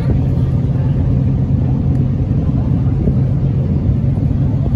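Tour boat's engine running with a steady low rumble.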